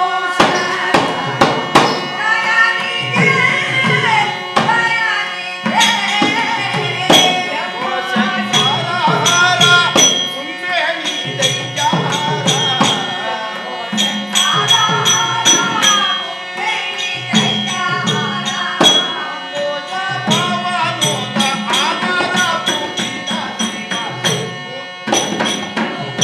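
Live music of a shadow-puppet play of the Ramayana: a voice singing a story melody over a steady held drone, with sharp percussion strikes clattering in a quick rhythm.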